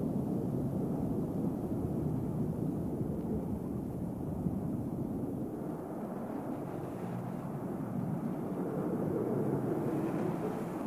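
A steady low rumbling underwater ambience, with a little more hiss coming in over the second half.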